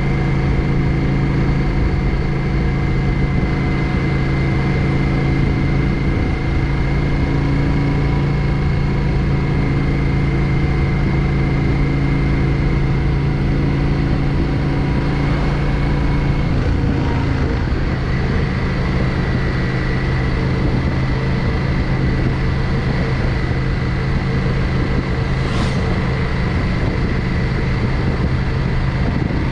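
Yamaha XVS 650 Drag Star's air-cooled V-twin engine running steadily as the motorcycle rides along. Its note shifts slightly a little over halfway through.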